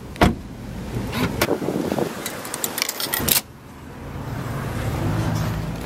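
A Jaguar F-Type's door shuts with one sharp clunk just after the start, then footsteps and small clicks and rattles follow. About three and a half seconds in, the outdoor background drops away abruptly.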